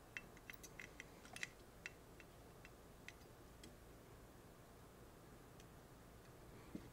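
Near silence with faint sharp ticks and crackles, clustered in the first second and a half and thinning out by about three seconds: solder being melted onto an LED lead with a soldering iron, the rosin flux crackling. A soft low bump comes near the end.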